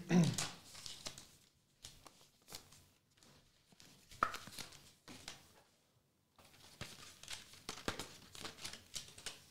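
Hands handling trading cards and plastic card sleeves: a string of short rustles, slides and light taps, with a brief pause about six seconds in.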